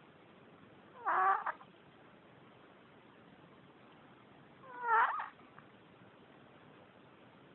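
Sleeping Chihuahua snoring: two short, whistling snores about four seconds apart.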